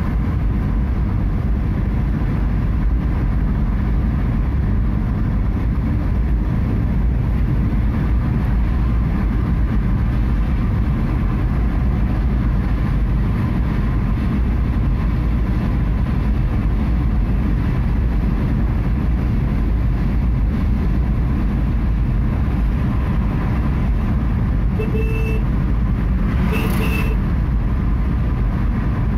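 Steady low rumble of a car's engine and tyres, heard from inside the cabin at highway speed. Near the end comes a vehicle horn in two short beeps.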